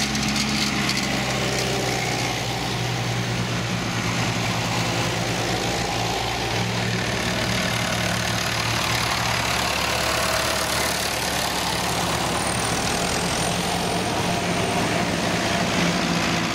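Engines of vintage tractors, grey Fergusons and a red David Brown, running steadily as they drive past one after another. The low engine note changes about six and a half seconds in as one tractor gives way to the next.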